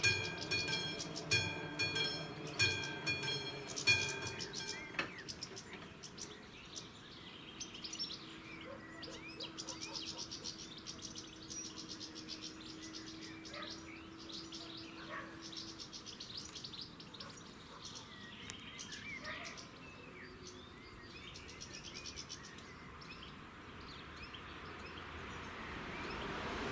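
Classic mechanical warning bell of AŽD 71 level-crossing signals ringing, about one strike every two-thirds of a second, then falling silent about five seconds in. Birds chirp after that, and near the end an approaching train grows steadily louder.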